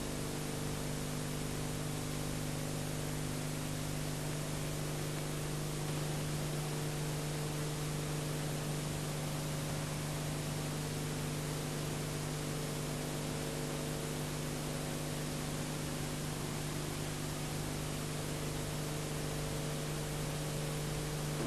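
Steady hiss with a low electrical hum and no programme sound: the background noise of an old analogue videotape transfer.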